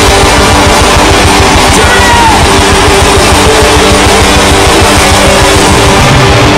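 Loud, heavily compressed rock music with distorted electric guitar and a fast, driving beat.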